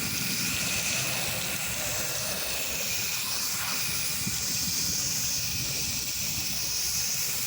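Pressure-washing spray applying soap solution, hissing steadily, with a low machine hum underneath.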